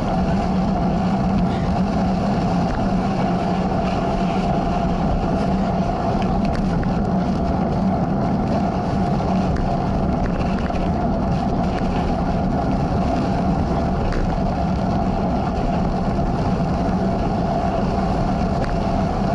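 Steady rush of wind on the microphone and tyre rumble as a cross bike rolls along a dirt singletrack, with faint scattered ticks.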